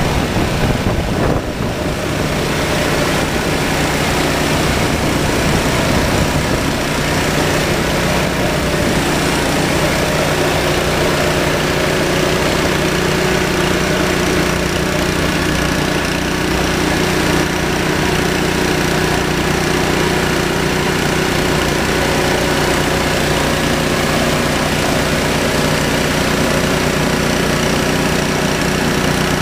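Gas pressure washer (Echo PW3600) running steadily under load, with the hiss of a 15-inch surface cleaner's spinning spray bar blasting the concrete.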